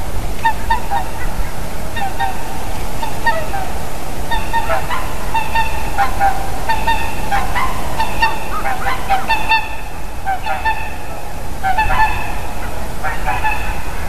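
Two swans calling in flight: repeated honking, bugle-like calls, often in quick pairs and runs, over a steady background hiss.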